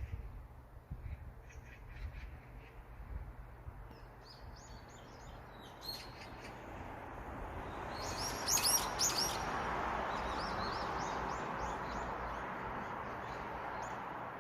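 Birds calling in a series of short, high chirps, loudest a little past the middle, over a rushing background noise that swells in the second half and slowly fades.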